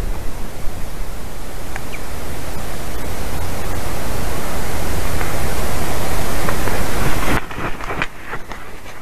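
Wind buffeting an outdoor nest webcam's microphone: a loud, even rushing noise that builds over several seconds, then drops off suddenly about seven seconds in, followed by a few faint clicks.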